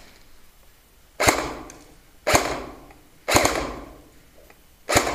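Four sharp airsoft rifle shots, about a second apart with the last after a slightly longer gap, each with a short echoing tail.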